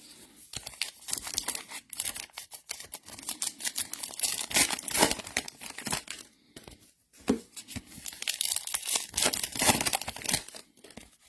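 Wrappers of baseball card packs being torn open and crinkled by hand: a run of crackling rips and rustles with brief pauses.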